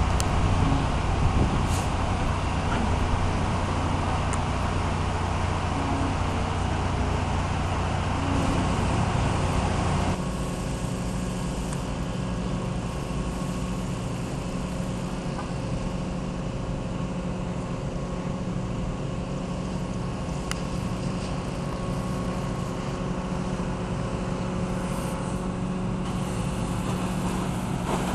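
Engine running steadily, a constant hum under a noisy wash. About ten seconds in, the overall noise drops and a steadier hum carries on.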